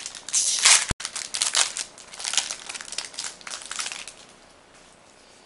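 Foil-lined Magic: The Gathering booster pack wrapper being torn open and crinkled by hand. The loudest rip comes about half a second in, then crackly crinkling continues as the cards are pulled out and dies away about four seconds in.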